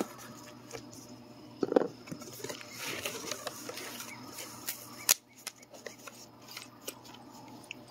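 Cardboard shipping box being handled and opened: flaps folded back and cardboard and foam packing rubbing and scraping, with scattered clicks, the sharpest about five seconds in.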